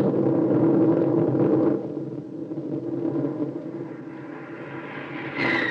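Radio-drama sound effect of a warplane's engine as it starts a dive: a loud low rumble that drops off about two seconds in, then builds again, with a falling whine beginning at the very end.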